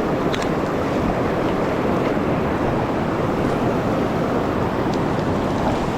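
Steady rush of a large river's current, an even noise with no breaks.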